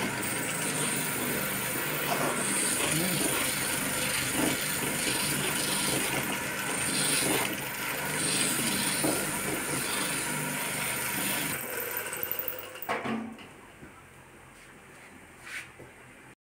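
Hand buffing machine, a rotary buffing wheel on a flexible drive shaft turned by an electric motor, running steadily while it scrubs the surface of a tread rubber strip to roughen and clean it so the rubber will bond to the tyre. About twelve seconds in the buffing sound falls away, followed by a few light knocks.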